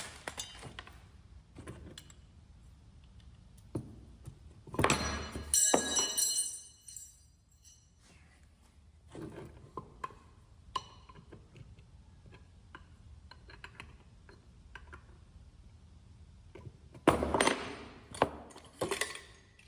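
Small metal spray-gun parts and a wrench being handled, clinking and knocking against each other and a hard surface, with a ringing clink about five seconds in and a cluster of louder knocks near the end.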